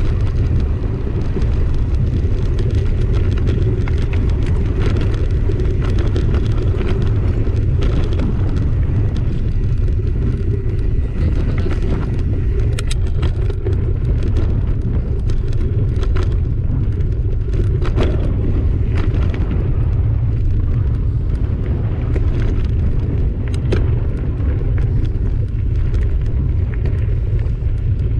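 Mountain bike rolling fast over a dry dirt and stony trail, heard from a camera mounted on the bike. There is a loud steady rumble of tyres and wind on the microphone, with scattered sharp knocks and rattles as the wheels hit stones.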